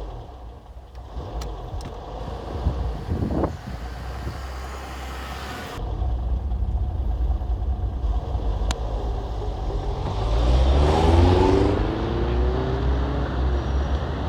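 Motor vehicle engine running with road noise, heard while riding in it. About ten seconds in the engine note rises and grows louder as it accelerates.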